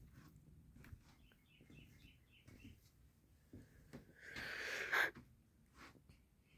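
Faint bird chirping in a quick run of high notes about a second in, then a short rushing hiss around four to five seconds in.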